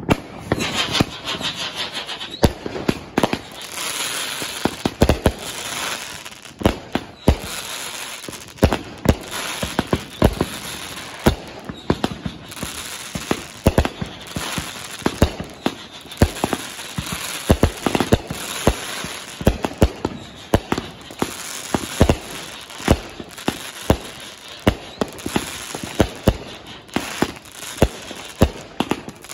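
Atom Bomb and Cobalt Bomb multi-shot firework cakes firing together: shot after shot, about one or two sharp reports a second, over continuous crackling from the crackling stars, with some whistling.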